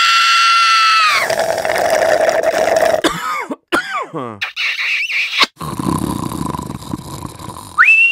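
A rapid montage of separate human vocal sound effects: a held high-pitched scream cuts off about a second in, followed by a string of short noisy vocal sounds and quick squealing pitch glides, ending on a rising squeal.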